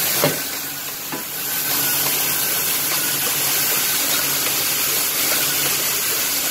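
Heidelberg printing press with a Stenz Ecofeed feeder running as it feeds C6 window envelopes: a steady mechanical running noise, with a couple of light clicks in the first second or so.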